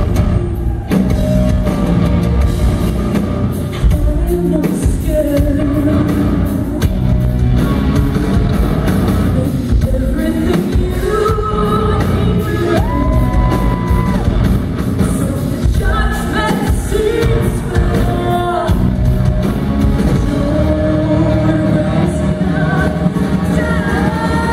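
Live rock band performing: a woman's lead vocal held over electric guitar, bass guitar and drums, heard from the crowd in a large hall.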